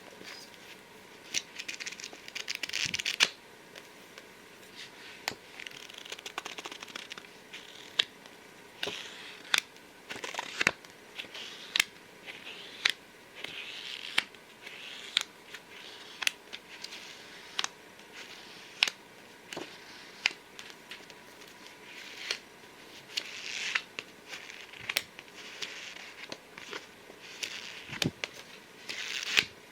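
Fingers tapping and rubbing on a book close to the microphone: irregular sharp taps, several a second at times, mixed with short stretches of papery rustling.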